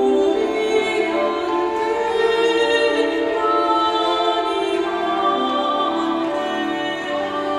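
Slow early music with long held notes: a bowed viola d'arco and a portative organ playing together.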